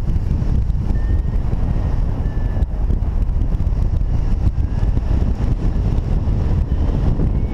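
Airflow buffeting the microphone of a paraglider pilot's camera in flight, a loud, steady, deep rumble. A few faint, short beeps from a flight variometer come through now and then.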